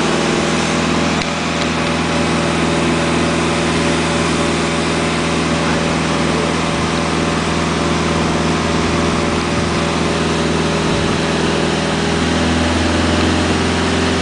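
Fireboat's engine running steadily under load while pumping, with the rushing hiss of the water stream leaving the manual fire monitor nozzle. The engine's pitch shifts slightly near the end as the nozzle opens toward a fog spray.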